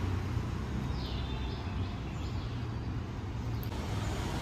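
Steady low background rumble of distant traffic, with a few short bird chirps about a second in.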